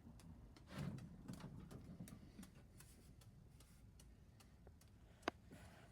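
Near silence with faint, irregular light clicks and ticks, and one sharper click about five seconds in.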